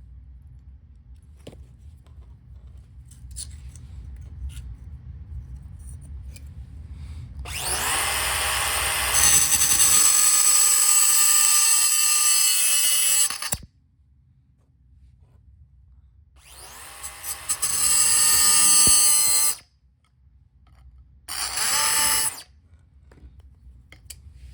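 Handheld power tool running on the car's sheet metal in three bursts: a long one of about six seconds, a second of about three, and a short last one.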